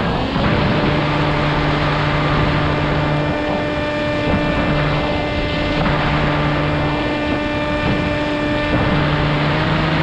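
Radio-controlled model airplane's engine and propeller running steadily, heard from a camera mounted on the plane, with air rushing over the microphone. The pitch steps up slightly just after the start and again near the end.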